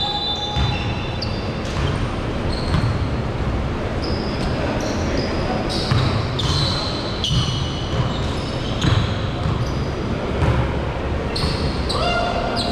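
Basketballs bouncing on a hardwood court, the knocks coming irregularly throughout, with short high sneaker squeaks and players' voices ringing in a large gym hall.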